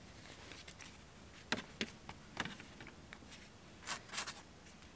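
Faint, sharp plastic clicks and snaps, a few scattered ones and then a quick cluster about four seconds in: the clips of a 2015 Toyota RAV4 dash trim bezel releasing as it is pulled off.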